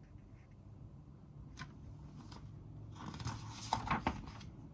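Pages of a hardcover picture book being handled and turned: soft paper rustles and a few light taps, thickest about three to four seconds in.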